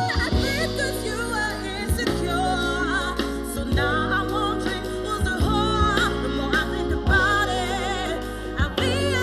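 Pop song played back through a portable Bluetooth speaker with a 6-inch Bose subwoofer: a singer's wavering, run-like vocal lines over a steady, heavy bass line with regular beat thumps.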